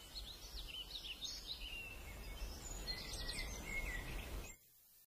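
Faint bird chirps over a low rumble of outdoor ambience, cutting to silence about four and a half seconds in.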